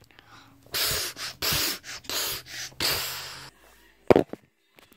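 A series of four rough, breathy rushes of noise close to a phone's microphone, like hard breaths or gasps, then one sharp thump about four seconds in.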